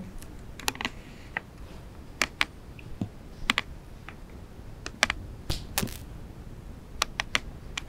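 Irregular light clicks and taps, a dozen or so, some in quick pairs.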